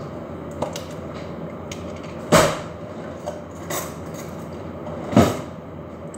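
Kitchen items being handled: two sharp knocks about three seconds apart, with a fainter knock between them, over steady background noise.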